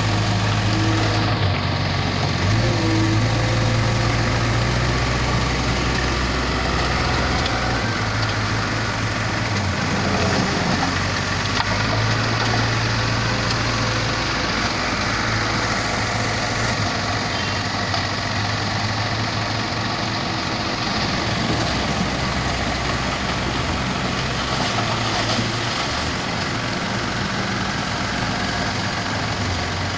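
Heavy diesel engines running: a wheel loader close by and a crawler excavator digging sand. A steady low engine drone whose note shifts up and down every few seconds.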